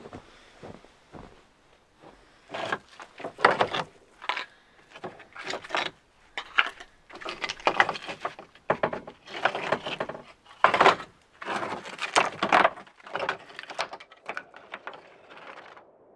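Flat stone slabs being handled on a trailer: a string of irregular knocks and scrapes that stops suddenly near the end.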